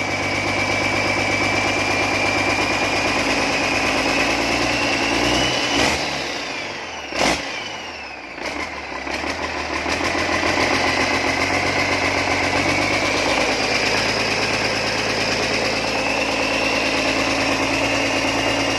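Isuzu 6WG1 six-cylinder diesel engine from a Hitachi 450 excavator running on a test run. Its pitch rises briefly and falls away around the middle, with a sharp click about seven seconds in, then it settles back to steady running.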